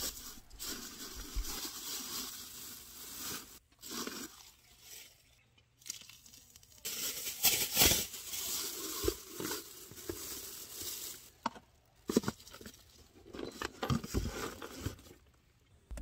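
Thin plastic trash-bag liner crinkling and rustling in irregular bursts as it is handled and pulled out of a small wastebasket.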